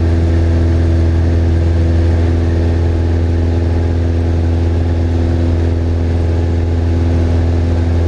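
Cessna 172's piston engine and propeller running with a steady, even drone, heard from inside the cockpit.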